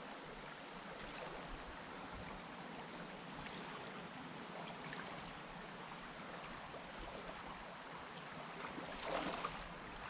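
Low, steady rush of flowing river water, with a brief louder swell of water noise about nine seconds in.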